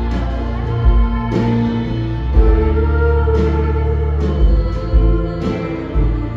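Live band playing: electric guitar and bass guitar holding chords over a steady bass line, with drum hits about once a second.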